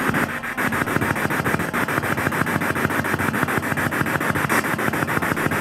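Handheld spirit box (radio sweep device) scanning through stations: a steady hiss of radio static chopped into rapid, even pulses, about ten a second.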